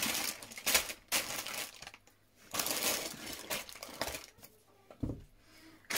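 Small plastic LEGO pieces rattling and clattering in their bags as they are handled, in two bursts with a short pause between, then a soft thump near the end.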